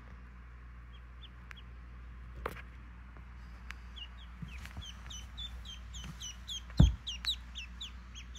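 Newly hatched Pekin ducklings peeping: a few scattered peeps, then from about four seconds in a quick run of short, high peeps, several a second. A single low thump near the end is the loudest sound.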